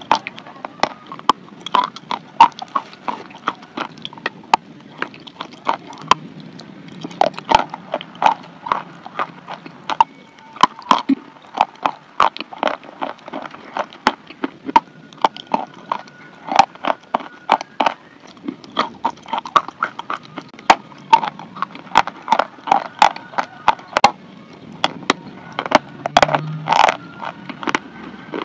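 Close-up biting and chewing of a lump of chalk: a dense run of sharp crunchy crackles and clicks, a few a second, with short pauses between bites.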